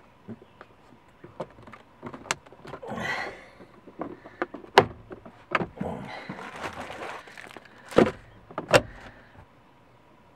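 Plastic glove box of a second-generation Chevy Trax being refitted into the dashboard and closed: rustling and rubbing of plastic with a string of sharp clicks and knocks. The loudest knocks come about halfway through and twice near the end, as it snaps shut.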